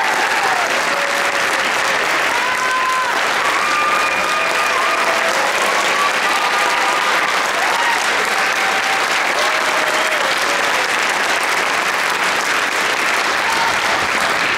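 Concert audience applauding steadily, with a few short cheers over the clapping.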